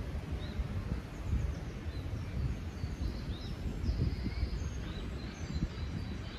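Outdoor ambience: a steady, uneven low rumble with small birds chirping briefly and repeatedly, high-pitched.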